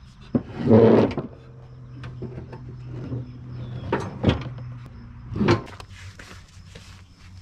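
Riding-mower deck being dragged across a wooden board under the mower: a loud scrape about a second in, then a few knocks as it shifts, and another shorter scrape a little after halfway.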